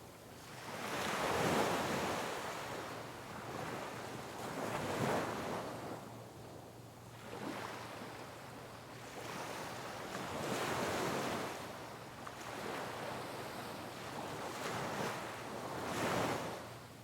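Sea waves breaking on rocks, in repeated surges of white noise that swell and fall back every few seconds, the strongest about a second and a half in and another just before the end.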